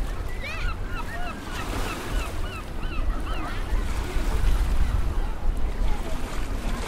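Seaside ambience: wind buffeting the microphone over the wash of surf, with many short, high, rising-and-falling bird calls scattered throughout.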